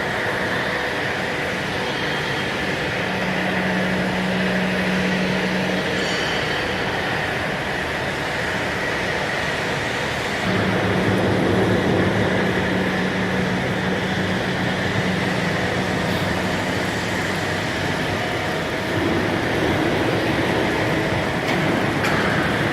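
CNC hydraulic press brake running with steady machine noise. A low steady hum comes in at about 3 s, drops away near 6 s, and returns louder from about 10 s.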